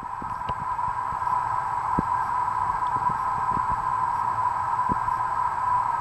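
Old ceiling fan running on a three-speed wall switch: a steady motor hum that swells a little in the first second, then holds, with a few faint ticks.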